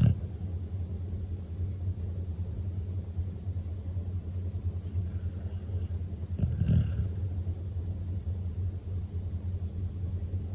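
Akita dog snoring in its sleep: a steady low fluttering rumble, with a louder, sharper breath about six and a half seconds in.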